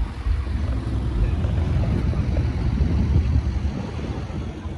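Car engine idling nearby, a steady low rumble.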